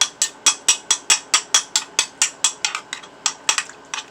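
A metal utensil rapidly clicking against a dish while mixing wet cat food with hot sauce and pickle juice, about five sharp taps a second.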